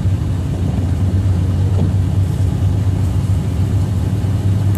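Steady road noise inside a moving car's cabin: a constant low drone from the engine and tyres while driving.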